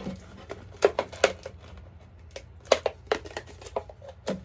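Rusty box knife cutting through a thin plastic drink bottle: irregular crackles and sharp snaps of the plastic, several loud clicks spaced roughly half a second to a second apart.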